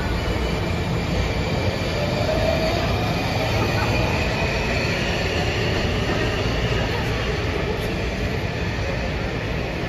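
Washington Metro Blue Line train pulling out of an underground station: a steady rumble of wheels on rail with a faint rising motor whine, easing off slightly as it moves away.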